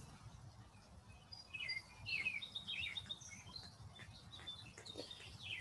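Faint bird chirps: a scatter of short, high calls from about a second and a half to three and a half seconds in, with one or two more near the end, over quiet room tone.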